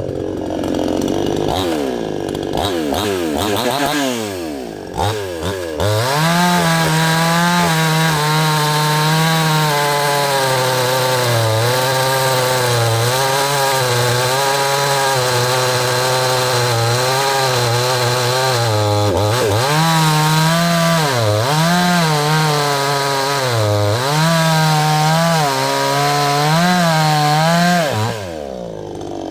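Neotec 62cc two-stroke chainsaw revving a few times, then held at full throttle under load as it cuts through a maple round. Its pitch wavers as the chain bites. It dips briefly about two-thirds of the way through and drops off near the end.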